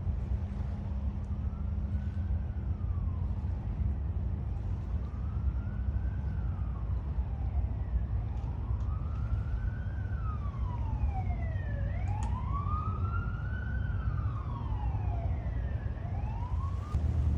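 Emergency siren wailing, its pitch rising and falling slowly about every four seconds and growing louder in the second half, over a steady low rumble. It breaks off near the end.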